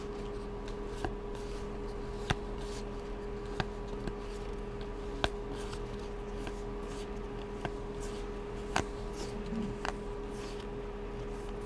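Magic: The Gathering cards handled one by one, each moved from front to back of the stack with a light card click every second or two, over a steady low hum.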